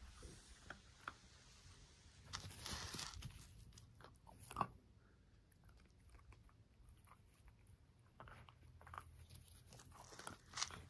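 A Jack Russell terrier chewing and biting on something held between its paws: irregular crunches and clicks, with one sharp louder crack about four and a half seconds in.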